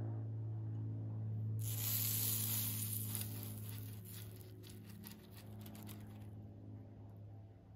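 Hot waffle iron plates sizzling as they are greased, a hiss that starts about a second and a half in and dies away near the end, over a steady low hum.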